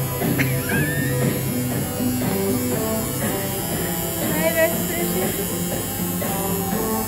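Background music with a melody, over the steady electric hum of a tattoo machine at work.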